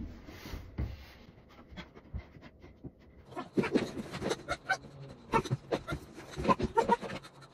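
Fast-forwarded sounds of a climber on a home plywood bouldering wall: quick, high panting breaths mixed with knocks and scuffs of shoes and hands on the holds and boards. The sounds thicken into a rapid clatter from about three seconds in.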